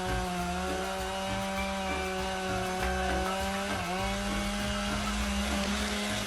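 A small engine running steadily at a near-constant pitch, dipping briefly about four seconds in.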